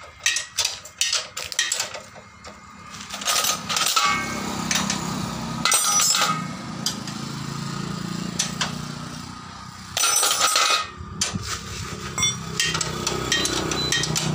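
Metal hand tools clinking and knocking against a motorcycle's rear-wheel fittings as it is taken apart for a puncture repair, in quick irregular taps. A steady low hum runs through the middle.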